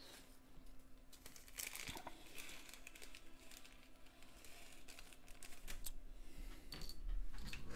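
Small packets of gemstones crinkling and rustling as they are handled and searched through, with scattered light clicks and taps.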